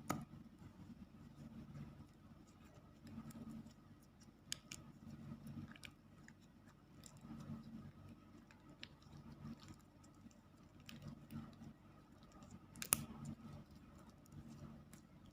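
Faint sounds of slime being stirred with a spoon in a container as colouring is worked in. A soft, uneven mixing noise is broken by scattered light clicks of the spoon against the container, the sharpest about 13 seconds in.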